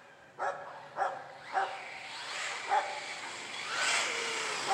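A dog barking several times. In the last second or so, the RC truggy's electric motor whines as the car speeds past, its pitch falling.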